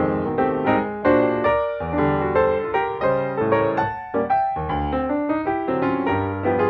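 Background instrumental music led by piano, a steady run of notes struck one after another and dying away.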